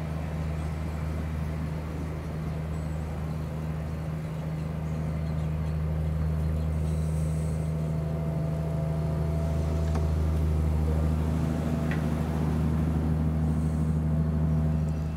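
Diesel engine of a Renfe locomotive on a Talgo train, a steady deep hum over the rumble of the coaches rolling past. The hum grows louder over the last several seconds as the rear locomotive draws level.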